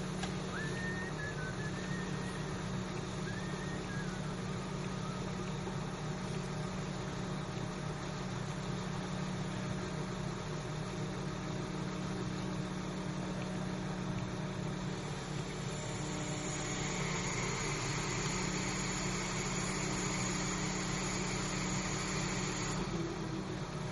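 Crane engine running steadily while a wall panel hangs from its slings. From about two-thirds of the way through it gets a little louder, with an added hiss that cuts off shortly before the end.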